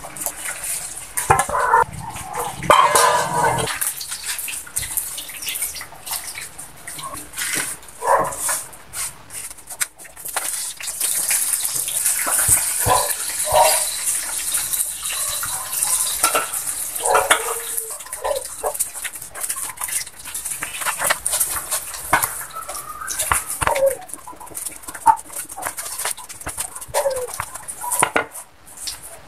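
Scattered animal calls, short and irregular, over a steady high hiss that is strongest through the middle.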